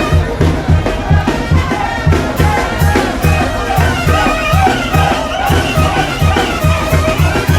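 Loud band music with brass over a steady, pulsing bass beat, about two to three beats a second.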